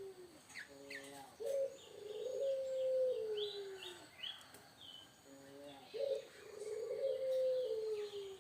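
A bird calling twice. Each call is a few short low notes followed by a long low whistle, about two seconds, that slowly falls in pitch. Short higher chirps come near the first call and between the two calls.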